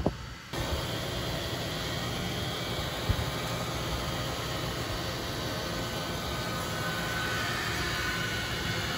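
Lincoln Town Car's V8 engine idling steadily with the hood open, heard up close at the front of the car as a smooth running hiss, with one brief click about three seconds in.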